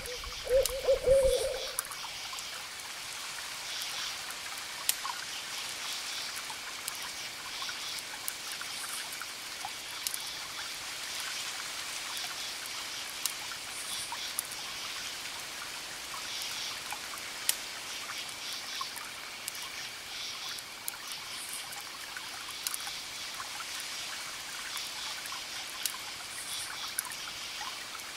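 An owl hoots in the first second and a half, over a steady hiss of water. A few sharp crackles from a wood fire sound later on.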